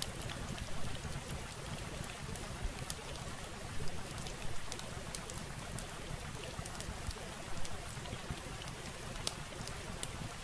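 Steady hiss over a low rumble, with scattered small clicks and crackles throughout.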